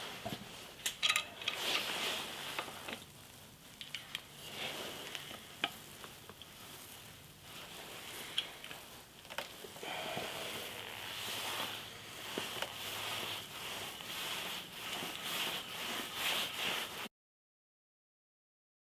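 Scattered light clicks and taps of hands working on small parts over a steady hiss, as a mirror is fitted to the motorcycle. The sound cuts to dead silence near the end.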